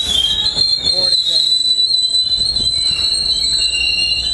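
NJ Transit passenger coaches rolling past, steel wheels giving a steady, high-pitched squeal over the low rumble of the train.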